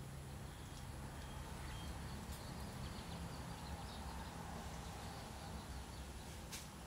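Quiet steady background hum, with one short sharp click near the end.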